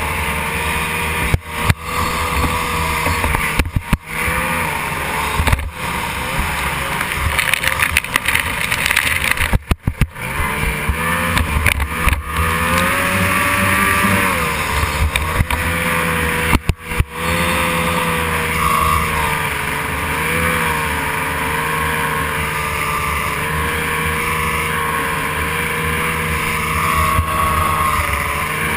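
Racing outboard hydroplane's engine running hard, heard from the cockpit, its pitch rising and falling as the revs change. The sound cuts out for a split second several times in the first seventeen seconds.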